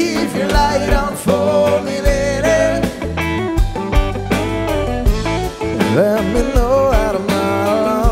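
Rock band playing an instrumental passage live: electric bass and a steady beat under a lead line of bending notes.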